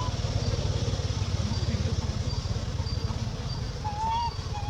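A steady low rumble with a fast, even flutter, like an engine idling, with faint short high chirps repeating about twice a second and a brief whistled call about four seconds in.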